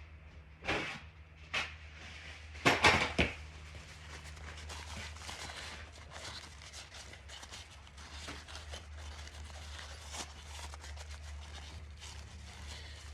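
Aerosol brake cleaner sprayed in three short bursts, the last and longest about three seconds in, to clean a freshly threaded spark plug hole. Faint rustling and small clicks follow, over a steady low hum.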